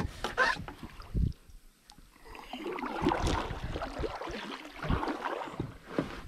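A kayak paddle dipping and splashing in the river water, starting a little past two seconds in, after a single thump about a second in.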